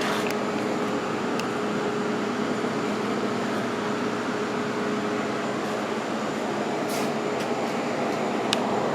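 Steady mechanical whirring hum with a constant tone, like a fan or blower motor running, with a few faint clicks.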